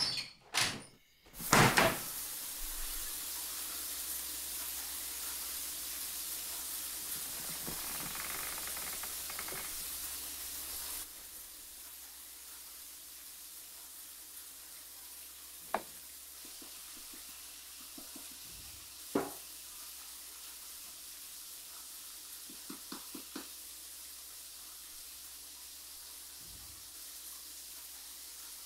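Wooden louvered shutters unlatched and pushed open: a couple of clicks, then loud knocks about two seconds in as they swing open. A steady hiss follows and drops away about eleven seconds in, and later there are a few scattered soft knocks and clicks.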